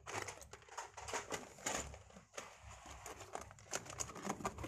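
Loose plastic Lego pieces rattling and clicking against each other in a plastic tub as hands sort through them, then plastic tubs being moved and handled, with many small irregular clicks.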